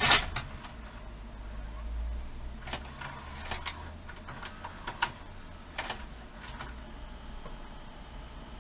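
VHS cassette pushed into a Toshiba DVR20 video recorder's opened tape mechanism with a loud clunk. The cassette loading mechanism then draws it in and lowers it onto the reels, with a low motor hum and a run of separate clicks and clunks.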